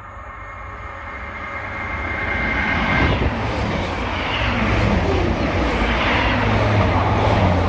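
Fast train approaching and running through the station, growing louder over the first three seconds, then a loud rush of wheels and engine with a low hum as it passes.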